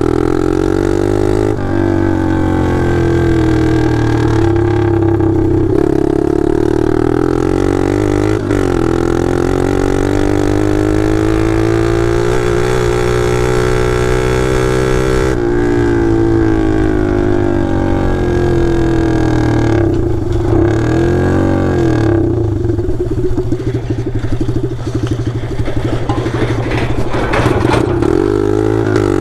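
Taotao DB17 125 pit bike's single-cylinder four-stroke engine running loud with no muffler, straight-piped. Its pitch rises and falls again and again as the throttle is rolled on and off.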